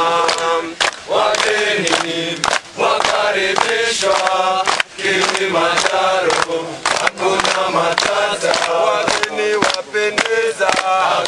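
Background music: a song with male voices chanting in chorus over frequent drum hits.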